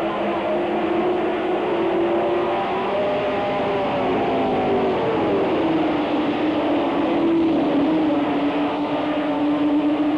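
A pack of late model stock cars racing around a short oval, their V8 engines at full throttle in a steady, loud drone. Several engine notes overlap, rising and falling in pitch as the cars pass through the turns.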